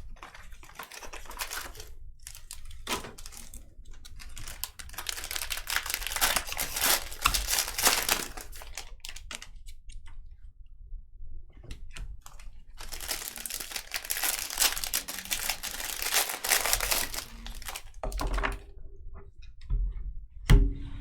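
Plastic wrapping crinkling and tearing in two long stretches as a sealed trading-card box or pack is opened by hand, with a single sharp thump near the end.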